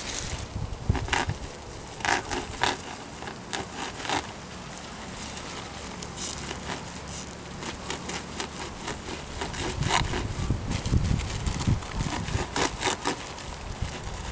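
Irregular crackling, rustling and sharp clicks of materials being handled by hand, over a faint steady low hum.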